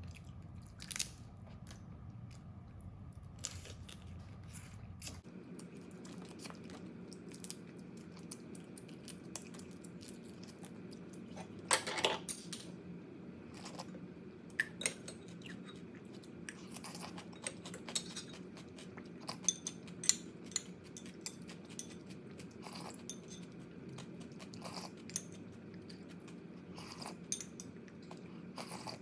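Close-up eating sounds: crab shells cracking and crunching between the teeth, with chewing and scattered sharp clicks. A louder burst of crunching comes about twelve seconds in.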